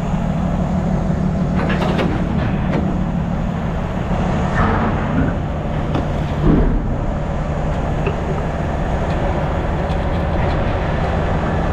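Semi truck's diesel engine idling steadily, with a few clanks and knocks from work on the rig, the loudest about six and a half seconds in.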